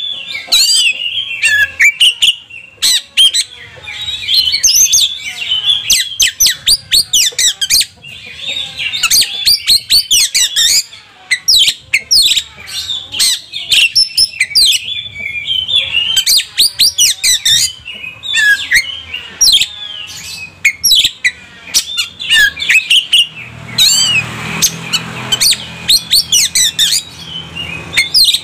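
Male Oriental magpie-robin singing almost without pause: a fast, varied run of whistles, chirps and harsh squawking notes, its full repertoire, with a quick trill about two thirds of the way through. A low rumble joins in near the end.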